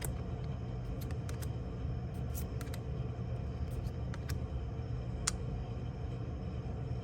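Pokémon trading cards being handled and slid past one another, giving a few faint clicks and flicks over a steady low hum.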